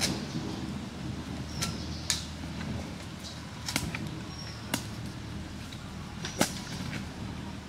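About half a dozen scattered sharp clicks and knocks over a low rustle: sticks being handled and poked into a fire's ashes, and people moving on dry leaf litter. A few short high chirps sound faintly among them.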